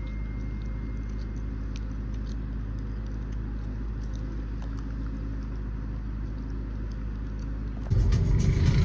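Steady low engine hum with a few faint clicks, turning louder and rougher about eight seconds in.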